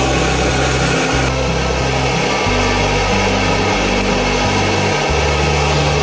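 Screw-on camping gas stove burning on a butane canister: a steady rushing roar of the burner flame under a cooking pot, with background music and a low bass line underneath.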